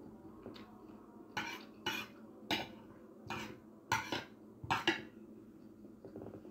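Metal spoon clinking and scraping against a plate while scooping food, about half a dozen sharp clinks in a row starting about a second and a half in.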